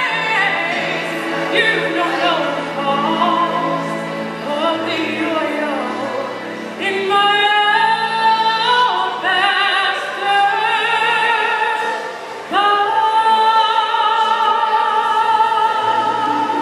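A woman singing a gospel song solo into a microphone, holding long notes with a wide vibrato, over a steady sustained accompaniment.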